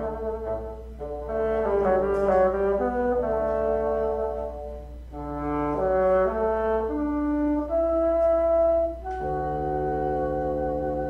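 Two bassoons playing a duet, two lines moving through changing notes, then settling about nine seconds in on two long held notes.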